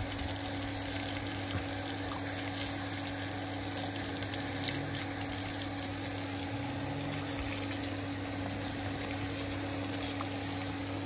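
Steady stream of pumped water gushing from the end of an electric pump's discharge hose and splashing onto a wet gutter, a continuous hiss with a low steady hum underneath.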